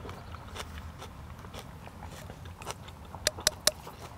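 A person chewing a mouthful of Sichuan-style boiled pork and lightly crunchy cabbage close to the microphone, with small wet clicks and crunches. Three sharp clicks come in quick succession a little past three seconds in.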